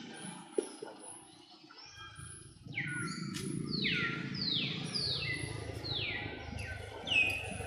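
A run of six or seven high animal calls, each sliding down in pitch, about half a second apart, starting a little under three seconds in, with the last call the loudest.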